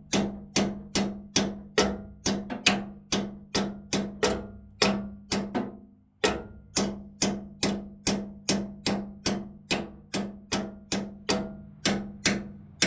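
Wrench used as a hammer, striking metal on metal in a steady rhythm of about two and a half blows a second, driving a new shear bolt into a snowblower auger shaft; each blow rings briefly, and the strikes pause once about halfway through.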